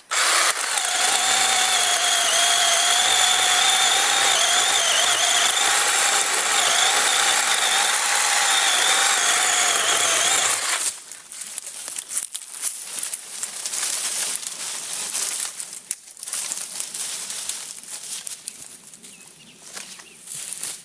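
Power saw running steadily under load for about ten seconds as it cuts a small live tree, its motor pitch wavering slightly, then it stops suddenly. Irregular crackling and rustling of branches and brush follow.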